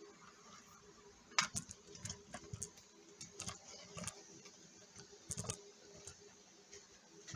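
Irregular light clicks and knocks of objects being handled on a workbench, the sharpest about a second and a half in and a quick cluster of them a little before the end, over a faint steady hum.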